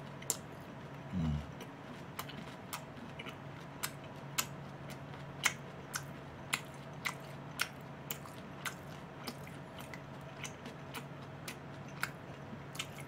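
Close-miked chewing of a mouthful of boneless fried chicken: sharp, crisp crunches about once or twice a second over a faint steady hum, with a brief low hum about a second in.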